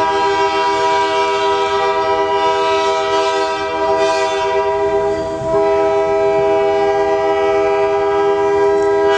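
Diesel locomotive air horn sounding one long, loud blast, several tones held together as a chord that shifts slightly about halfway through.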